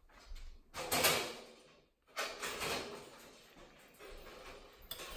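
Sliding and scraping handling noises, as of a panel or speaker being moved against wood, in two loud stretches about one and two seconds in, then quieter rubbing.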